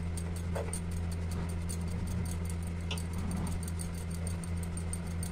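Wheat flour being sifted through a hand-shaken sieve over a steel bowl: a quick, even run of light scratchy ticks and rattles as the sieve is shaken, over a steady low hum.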